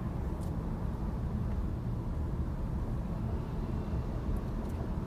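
Steady low rumble of a car on the move: engine and tyre noise picked up by a dashcam inside the car.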